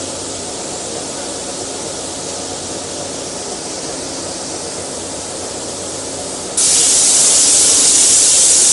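A steady hiss, then about two-thirds of the way in the plasma torch of a CNC pipe-cutting machine fires its arc. The sound jumps to a much louder, harsher hiss as the arc starts cutting through the steel pipe.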